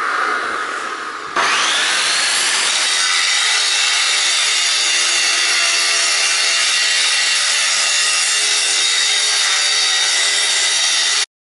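Angle grinder grinding the welded top edge of a mild steel plate anvil: a steady whine over the harsh hiss of the disc on steel. It comes in at full level about a second and a half in, its pitch rising briefly as it settles, and cuts off suddenly near the end.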